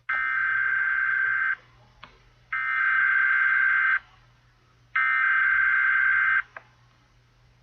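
Emergency Alert System SAME header: three bursts of buzzy, modem-like digital data tones, each about a second and a half long and about a second apart. This is the coded header of a tornado warning.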